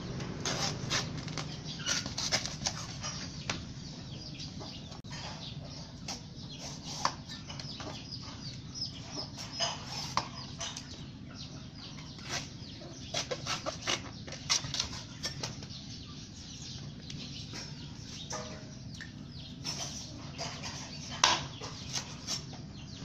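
Cleaver chopping and slicing a banana stem sheath on a brick block: irregular sharp knocks and crisp cuts, some in quick clusters, the loudest knock near the end. Chickens cluck in the background.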